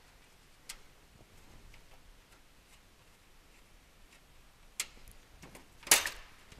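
Side-panel latch of a tower PC case being worked open: a few faint clicks, then a louder click about six seconds in as the panel comes free.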